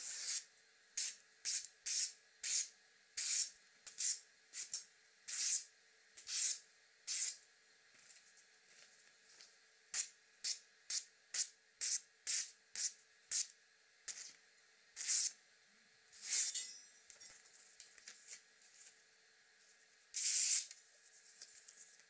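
Kitchen knife slicing through a hanging sheet of magazine paper, a paper-cutting test of the edge's sharpness: about two dozen quick, hissing slices with a pause of a couple of seconds in the middle. A longer, rougher cut comes after the middle of the run, and the last cut, near the end, is the loudest.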